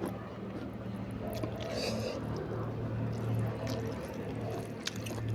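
Close-miked wet eating sounds: chewing and squishy mouth noises from rice and palak paneer gravy, with scattered soft clicks, over a steady low hum.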